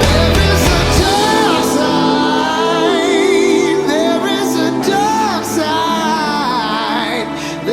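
Soundtrack music with a wordless sung vocal line over sustained chords; the heavy low bass drops away about a second in.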